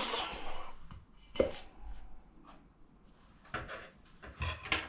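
Kitchen handling noise: a small metal pie dish is picked up and set down upside down on rolled pastry and baking paper. There are a few brief knocks and clatters, the loudest cluster near the end.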